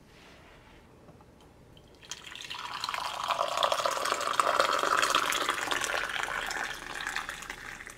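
Coffee poured from a carafe in a steady stream into a ceramic mug, starting about two seconds in and tapering off near the end.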